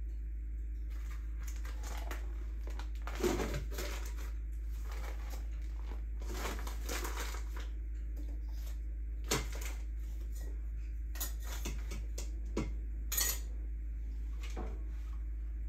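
Kitchenware being handled: a handful of scattered clinks and clatters of pots, dishes or utensils, the loudest about three seconds in, over a steady low hum.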